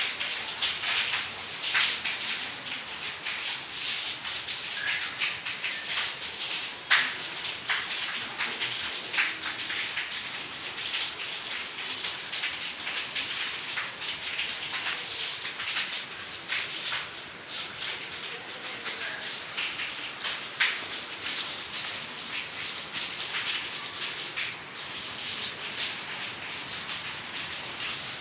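Cattle munching and nosing through dry chopped straw in a wooden trough: a crackly rustling with scattered sharp clicks.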